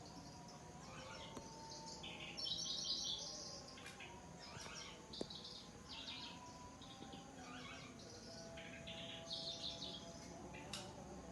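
Kecici belalang (lanceolated warbler) singing: short bursts of rapid, high chirping trills repeated again and again, loudest about two and a half seconds in and again near the end.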